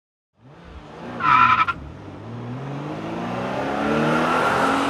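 Logo sting sound effect: a short, loud, high screech a little over a second in, then a swelling sound that rises in pitch and loudness like an engine revving up.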